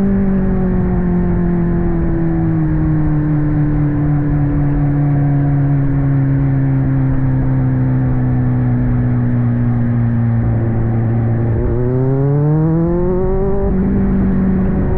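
Kawasaki Z900 inline-four through an aftermarket AR exhaust, its note sinking slowly as the bike rolls off and slows. About three-quarters of the way through it picks up again and rises in pitch for a couple of seconds as the bike accelerates, then holds.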